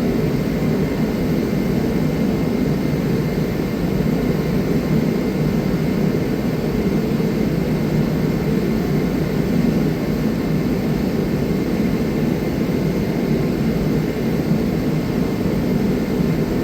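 A steady, unbroken fan-like whoosh and hum of air-moving machinery, with no distinct events.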